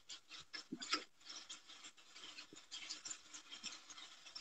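Chicken pieces sizzling and bubbling faintly in a pan on high heat, a steady patter of small irregular crackles as the meat cooks in the liquid it has released.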